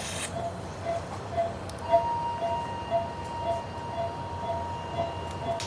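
Surgical patient monitor beeping about twice a second with the dog's pulse. From about two seconds in, a steady higher electronic tone joins and holds.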